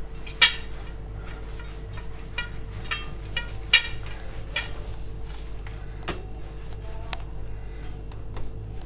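Stainless-steel plate clinking and ringing lightly as hands roll a date roll in poppy seeds on it: a string of small metallic knocks, a sharp one near the start and the loudest about midway.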